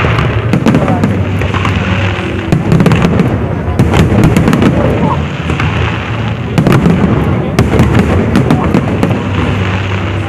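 Aerial fireworks display going off continuously: dense rapid bangs and crackling shell bursts, one after another with no pause.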